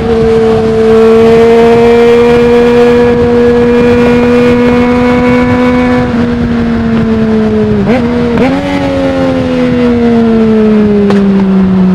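2020 Yamaha MT-09's 847 cc inline-three engine through an Akrapovic full-system exhaust without its dB killer, cruising at steady revs. About eight seconds in there is a quick break and jump in pitch, like a downshift. After that the revs fall slowly as the bike slows, with wind noise underneath.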